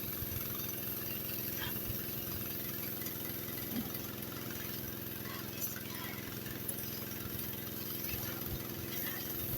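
Gas pressure washer's horizontal-shaft Honda engine running steadily, with the hiss of the water jet. Wind gusts rumble on the microphone.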